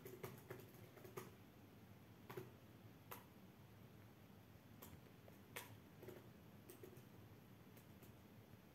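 Near silence: faint room tone with about a dozen faint, sharp clicks and ticks at irregular intervals.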